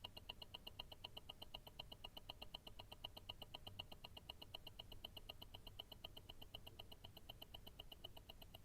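Tourbillon watch movement of an Invicta Grand Octane ticking, heard through a stethoscope pressed to it. Its escapement beats out a fast, perfectly even run of faint ticks, several a second.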